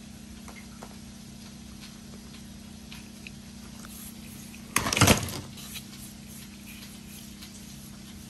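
Fingers rubbing grated coconut into leftover masala in a bowl: faint scraping and small ticks, with one brief louder knock and scrape about five seconds in. A steady low hum runs underneath.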